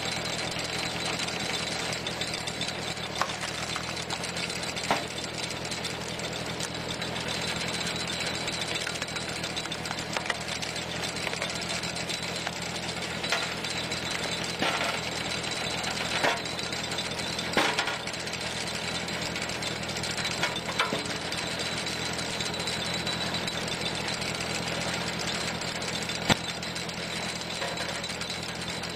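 Tractor engine running steadily, driving a PTO cone-screw log splitter, with sharp cracks now and then as the screw bores into the log.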